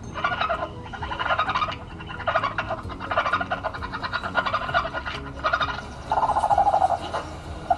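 Raccoon chittering: a run of short, rapid trilling bursts, with a longer, smoother call near the end.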